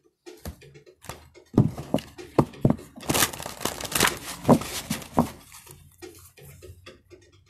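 A deck of goddess oracle cards being picked up and shuffled by hand: a string of soft clicks and taps as the cards hit each other, with a denser rustling stretch a little before the middle.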